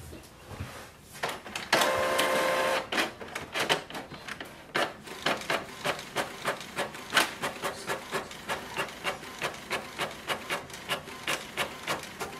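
Canon MAXIFY GX3020 inkjet printer printing a page. A brief steady whir comes about two seconds in, then an even run of mechanical strokes, about three a second, as the print head carriage shuttles back and forth across the sheet.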